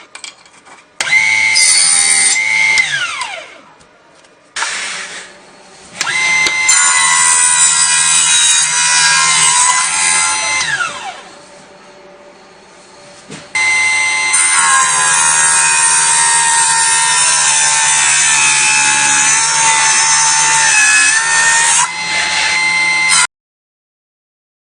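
Electric mini table saw with a small high-speed steel blade, its motor starting up several times with a high whine and winding down with a falling pitch in between. During the longer runs it cuts through material, which makes the whine rougher. The sound cuts off suddenly near the end.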